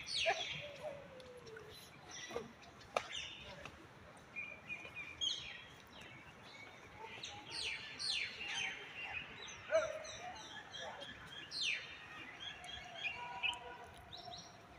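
Birds chirping: many short, quick falling chirps, one after another.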